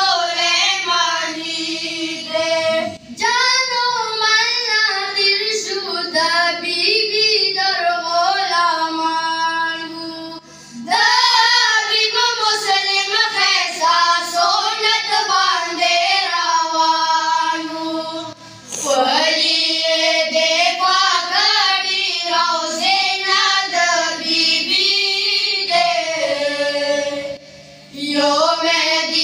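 Several boys singing a Pashto devotional song together, unaccompanied, into microphones, in long phrases broken by brief pauses for breath.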